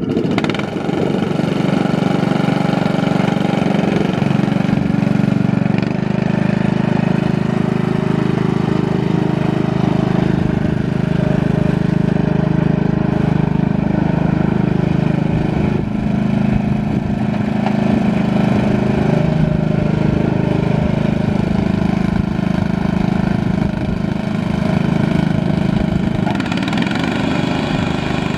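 Scotts L1046DV riding lawn mower's engine running steadily, its note shifting about six seconds in.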